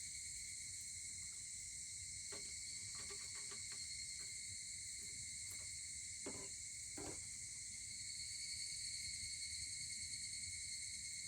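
A steady chorus of insects singing, with a few short crackles of a wood fire about two to four seconds in and two louder pops around six and seven seconds in.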